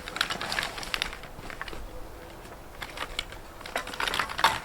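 Bags and packaging being handled and searched through: quick runs of small clicks and rustles, busiest at the start and again near the end, quieter in between.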